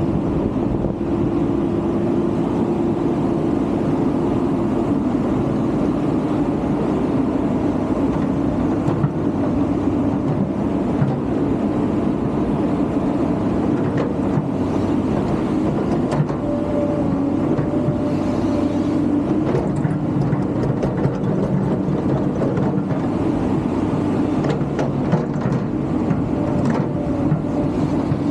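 Hydraulic excavator's diesel engine running steadily as the machine works, with a higher tone coming in briefly about two-thirds of the way through and again near the end.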